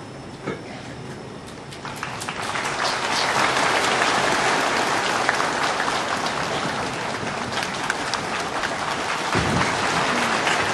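Large crowd clapping, beginning about two seconds in and building to dense, steady applause.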